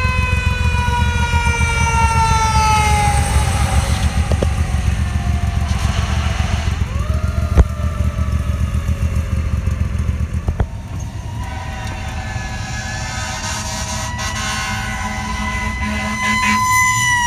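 A fire engine's warning signal: two long blasts, each rising quickly in pitch and then sliding slowly down, over a steady low rumble. About ten seconds in the sound changes to steadier horn tones, heard from inside a vehicle and loudest near the end.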